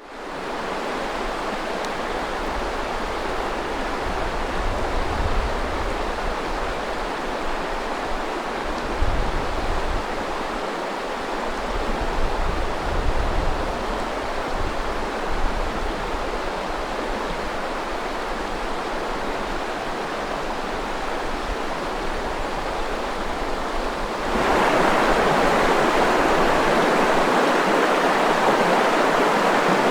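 Nizhnyaya Luvenga river water rushing, a steady even rush. About 24 seconds in it cuts abruptly to a louder, fuller rush from a second spot on the river.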